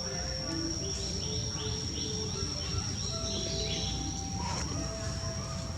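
Outdoor ambience: a steady high-pitched insect drone, with a bird giving a quick run of short rising chirps about a second in, over a low rumbling background.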